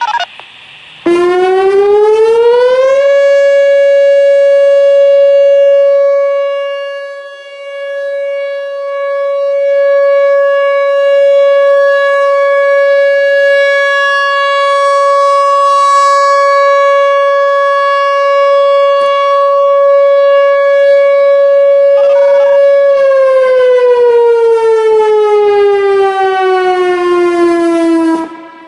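Whelen WPS-4004 electronic outdoor warning siren sounding a steady alert tone. It starts about a second in and rises in pitch over about two seconds. It holds one loud, steady tone, then falls in pitch over the last five seconds and cuts off near the end.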